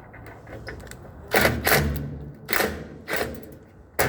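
Sharp clicks and knocks from parts being handled and snapped into place while a top-load washer's outer cabinet is refitted, about five of them starting about a second in.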